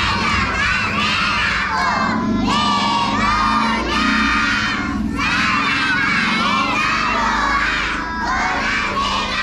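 A crowd of young children shouting together in long phrases, with short breaks about every three seconds.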